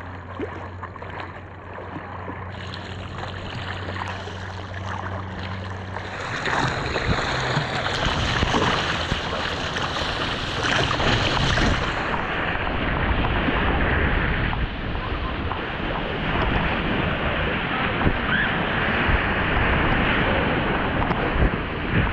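Ocean surf and rushing water heard on a helmet-mounted GoPro in the water, with wind buffeting the microphone. The rush grows much louder about six seconds in and stays loud.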